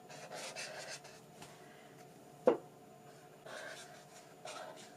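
Chisel-nib alcohol marker scratching across sketchbook paper in short strokes, with one sharp click about halfway through.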